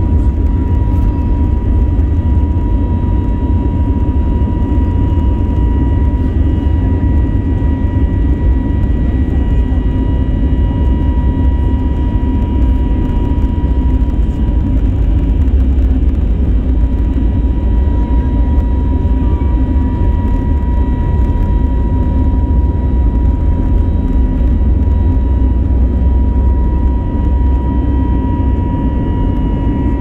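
Airbus A321neo jet engines heard from inside the cabin, running steadily at low thrust before takeoff power: a deep rumble with a constant high whine.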